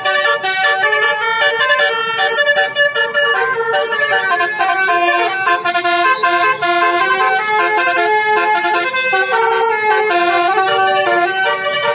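A bus's Basuri 'telolet' multi-tone musical air horn playing a quick tune, its notes stepping up and down without a break.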